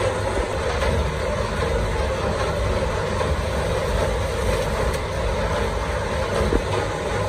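Belt-driven rotary sheet-metal slitting machine running steadily, a continuous low machine hum and whirr from its electric motor and spinning cutter wheels.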